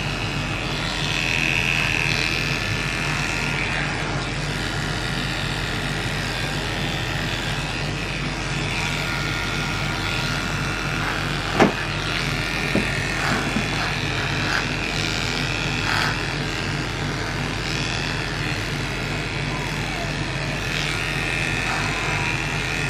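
Cordless electric dog clippers running steadily as they shave a dog's coat, a constant motor hum, with one sharp click about halfway through.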